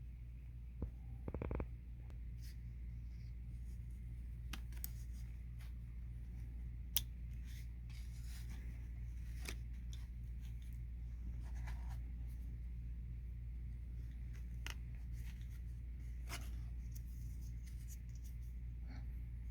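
Light clicks, taps and scrapes of small parts being handled, scattered irregularly over a steady low hum. A cluster of louder clicks comes about a second in, and a single sharp click about seven seconds in.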